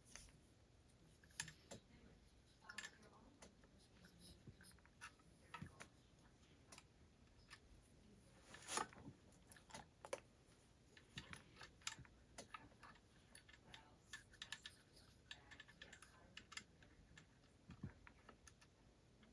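Faint, irregular small clicks and taps of chainsaw parts being handled and fitted by hand during reassembly, with one louder knock about nine seconds in.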